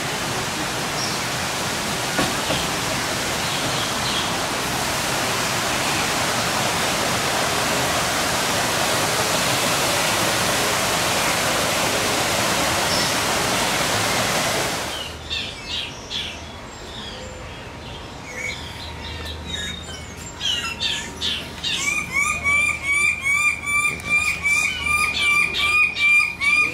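A steady rushing noise with faint bird chirps, which stops suddenly about halfway through. Birds then call, and near the end one bird repeats a short, loud call rapidly, about three times a second.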